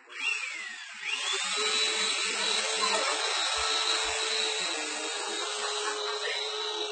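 Vacuum cleaner running: its motor comes up about a second in, then runs steadily with a high whine over a rushing hiss.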